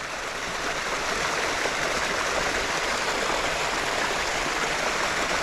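Small creek stream running and splashing over a little waterfall into a pool: a steady rush of water.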